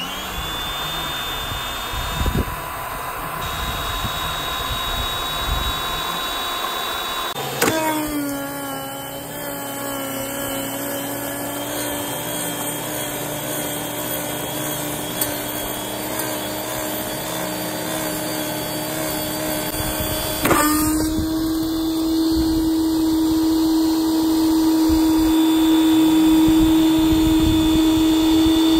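A Campbell & Hausfeld 1300 PSI electric pressure washer's motor and pump start up and run with a steady whine. There are two sudden knocks as the unit is knocked over, about a quarter of the way in and again about two-thirds in. Each one shifts the pitch of the whine, which runs louder after the second.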